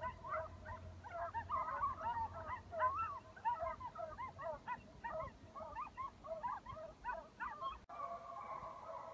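A pack of hunting hounds giving tongue while running, with many short overlapping yelps and bawls. About eight seconds in, it cuts to a denser, steadier chorus.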